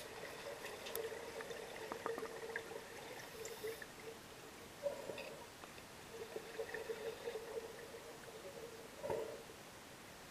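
Muffled underwater sound in a pool, heard through an underwater camera housing: uneven bubbling and gurgling with scattered small clicks.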